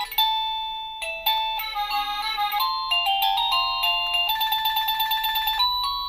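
Wireless doorbell chime receiver playing one of its stored electronic melodies: a tune of bell-like notes, each struck sharply and fading quickly, with a quick run of rapidly repeated notes past the middle.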